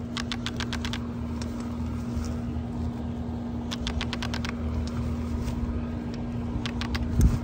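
Glass tubes of a Solyndra cylindrical solar panel clicking in three quick runs of sharp ticks as the tube array is pulled free of its frame's rubber end holders, over a steady low hum.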